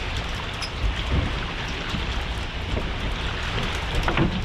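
Wind and water noise on an open boat: a steady rushing hiss over a low rumble.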